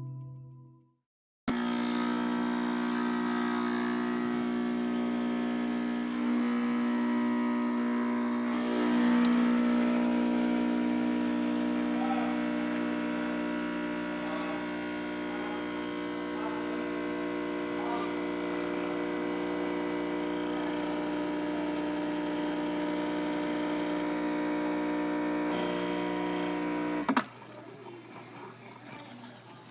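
Breville Infuser espresso machine's vibratory pump buzzing steadily while pulling an espresso shot, growing louder a few seconds in. It shuts off abruptly with a click near the end.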